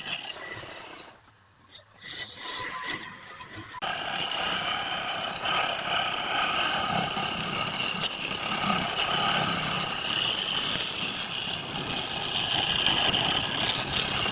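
Wood lathe running with a turning tool cutting the spinning wood: quieter, uneven sounds at first, then a steady, loud cutting noise from about four seconds in.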